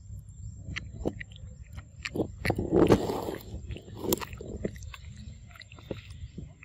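Macaques eating corn on the cob close to the microphone: a run of crisp bites, crunches and small smacks, with a louder crunch about three seconds in.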